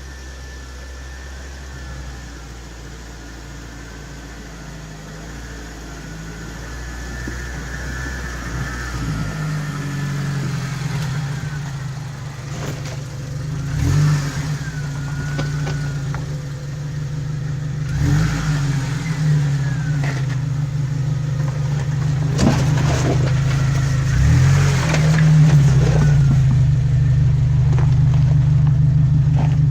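Jeep Wrangler's engine pulling over a rough off-road trail, its pitch rising and falling as it revs, growing louder from about a third of the way in. Several sharp knocks and clunks come through in the second half.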